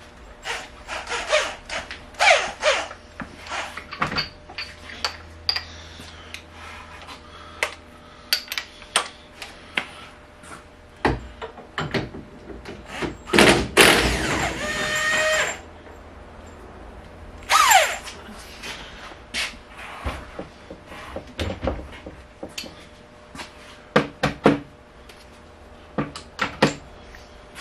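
Scattered clicks, knocks and tool clatter from hand work inside a car's cabin, with a louder two-second noisy stretch about halfway through and a short falling squeak a couple of seconds later.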